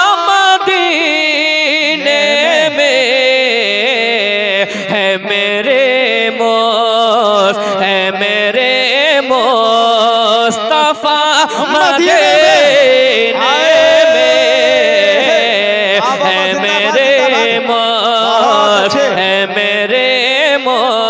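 A man singing an Urdu naat into a microphone over a PA, in long held notes that bend and slide melismatically. A low steady note sounds underneath.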